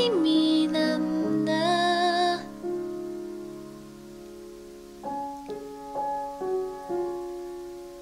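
Slow piano ballad music. A woman's voice holds sung notes with vibrato over piano chords for the first couple of seconds, then the piano plays a few soft, separate notes alone.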